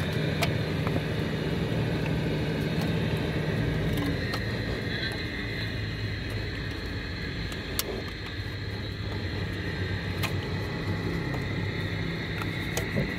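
Steady low mechanical hum and rumble from a running machine, with a few sharp light clicks and taps scattered through, as wiring and a sheet-metal electrical box are handled.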